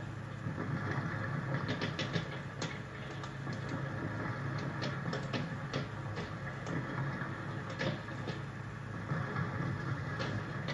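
Fireworks popping and crackling in quick irregular cracks over a steady low drone.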